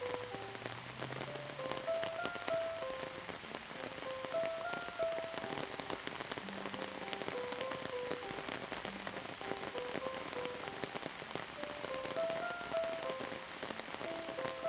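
Steady rain, with many separate drops striking a surface, over a soft, slow melody of single held notes that repeats its phrase every few seconds.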